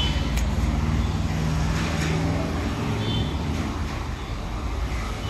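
Steady low rumble of an engine running, with a faint high chirp near the start and another about three seconds in.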